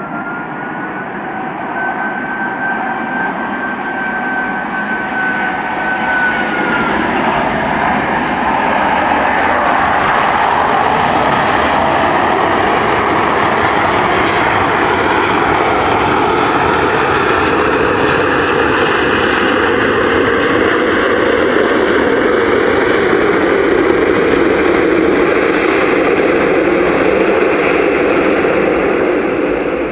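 Airbus A380's four jet engines as the airliner lands and passes close by. The engine noise grows louder over the first eight seconds or so and then holds steady and loud. A high whine wavers in pitch early on, and another whine slowly climbs in pitch in the second half.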